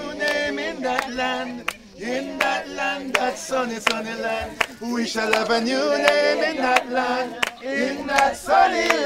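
A group of men and women singing together, a gospel-style song sung as a choir, with many short sharp strikes sounding through the singing.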